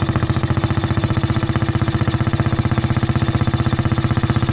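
BMW R20's single-cylinder engine idling with a rapid, even beat, freshly kick-started after restoration.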